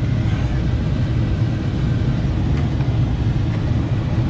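Steady low rumble of background noise, with a couple of faint clicks.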